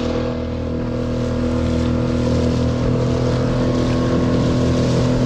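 A Solo Skiff's small outboard motor running steadily at trolling speed, with water rushing past the hull.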